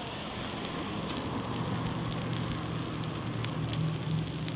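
Wildfire burning through dry grass and brush: a steady hiss with scattered sharp crackles and pops. A low steady hum runs underneath from about a second in.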